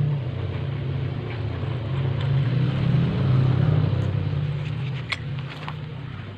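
A motor running with a steady low hum that swells toward the middle and eases off near the end, with a few light clicks about five seconds in.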